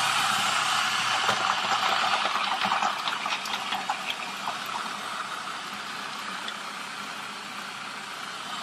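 Cuisinart Elemental 13-cup food processor running on high with its chopping blade, mincing garlic cloves dropped down the feed tube. For the first few seconds the cloves tick and rattle against the blade and bowl. It then settles into a smoother, slightly quieter whir as the garlic is chopped fine.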